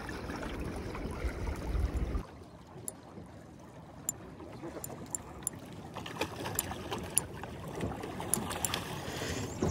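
Rushing water of a swollen river, with a low rumble for the first two seconds that cuts off suddenly, then a few short sharp clicks and knocks.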